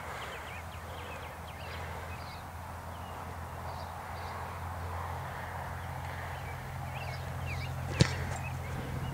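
A single sharp thump of a kicker's foot striking a football off a kicking tee on a field goal attempt, about eight seconds in, over a steady low outdoor background with faint chirps.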